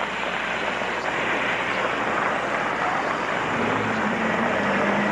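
Steady hiss of heavy rain on a wet street. A vehicle's low engine hum comes in about three and a half seconds in.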